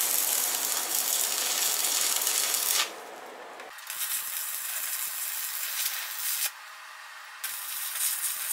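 Stick arc welding on steel frame tubing: the arc crackles and hisses in three runs, breaking off about three seconds in and again about six and a half seconds in, each time struck again after a second or so.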